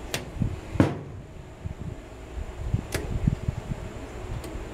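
Rubber heater hose being handled and fitted under the hood: four sharp clicks and knocks, the loudest a little under a second in, over a faint steady hum.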